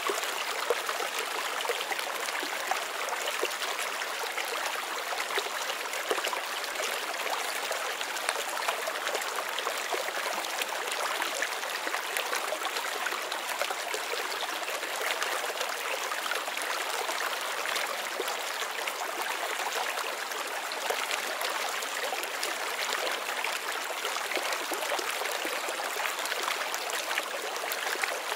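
Flowing stream water, a steady, even rush that does not change.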